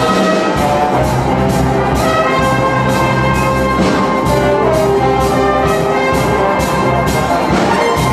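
Orchestral music with prominent brass over a steady, driving beat.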